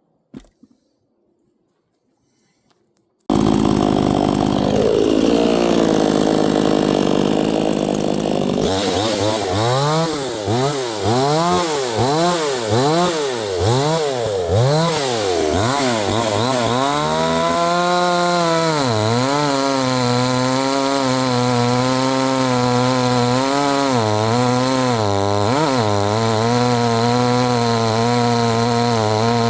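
A 68 cc two-stroke chainsaw cutting wood, starting loud after about three seconds of silence. Its engine pitch rises and falls in quick regular waves as the saw works into the cut, then holds at high revs with brief dips under load.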